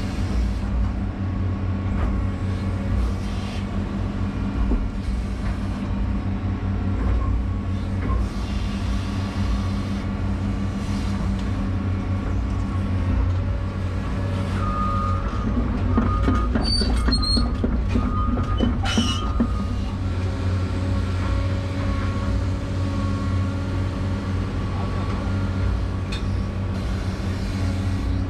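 Excavator's diesel engine running steadily with its hydraulics working, heard from inside the cab. A thin high whine and a few sharp knocks come in between about 15 and 19 seconds in.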